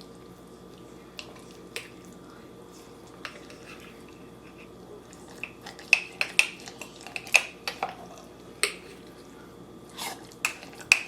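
A spoon stirring crushed ginger into honey in a glass jar. A few soft clicks come at first, then from about halfway a quick run of sharp clinks of the spoon against the glass, several a second.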